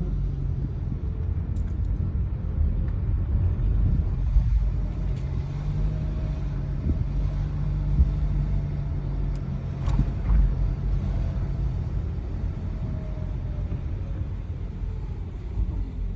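A car's engine running with a steady low drone and rumble, with faint higher tones that rise and fall at times and a few light clicks.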